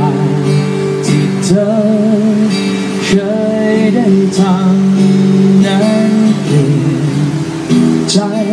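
A man singing with vibrato into a microphone while strumming an acoustic guitar: live solo acoustic performance.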